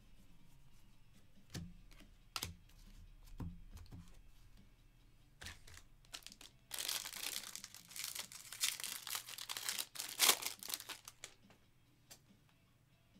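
A few soft clicks of trading cards being handled, then a foil card-pack wrapper ripped open and crinkled for about four seconds in the second half.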